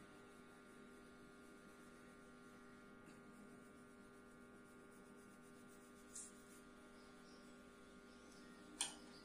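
Near silence with a steady electrical hum of several even tones. Two brief clicks break it, one about six seconds in and a louder one near the end.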